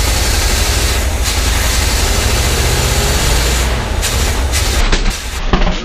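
A 350 V8 in an old bread truck running loud and rough just after firing, with its carburetor primed by hand. About five seconds in it falters and seems to cut out.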